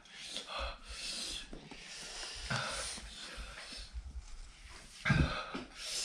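A person breathing hard and wheezing through the mouth, drawing in air against the burn of the extremely hot Jolo chili chip, with a short, louder voiced sound about five seconds in.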